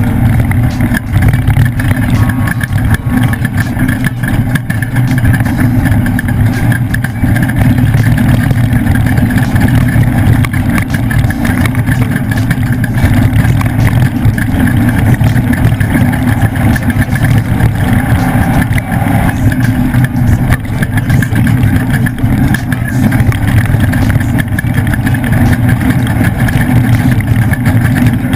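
Ford off-road race truck's engine running steadily and loud under load, with a constant clatter of knocks and rattles as the leaf-sprung chassis is driven hard over rough ground.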